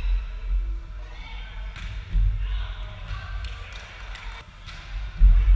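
Indoor volleyball being played in a gym: several sharp slaps of hands on the ball and thuds, with players' voices calling out, and a heavier low thump near the end.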